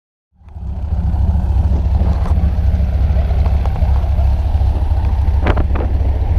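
Small single-engine propeller plane's engine idling on the ground, a steady low rumble mixed with propeller wash on the microphone; it fades in during the first second. A few light knocks come about five and a half seconds in.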